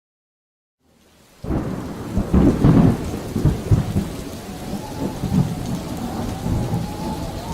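Thunderstorm: rain and heavy, uneven rumbling that start suddenly about a second and a half in, loudest in the first few seconds. A faint wavering tone sits underneath from about the middle on.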